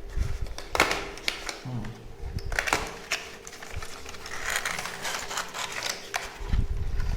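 Accessory packaging being handled and opened by hand: rustling with many scattered sharp clicks and taps.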